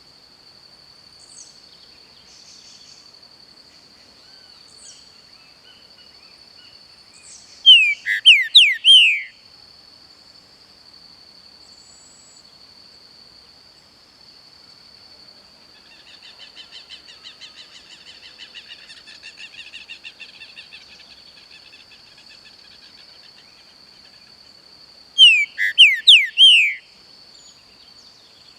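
Green-winged saltator (pixarro) singing two short, loud phrases of about five quick, descending whistled notes, the first about eight seconds in and the second near the end. Under them runs a steady, high-pitched insect buzz, and a fainter rapid trilling comes in the middle.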